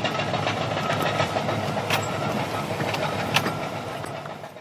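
Steady engine and road rumble heard from inside a fire truck's cab on a rough bush track, with occasional sharp knocks and rattles, the strongest about two seconds in and again a little over three seconds in. The sound fades out right at the end.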